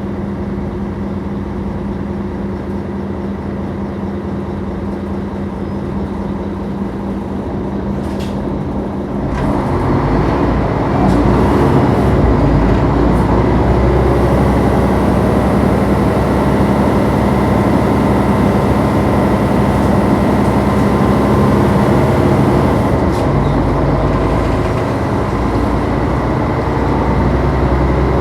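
Inside an empty city bus: the diesel engine hums steadily at first. About nine seconds in, engine and road noise swell louder as the bus drives on, and stay steady from there.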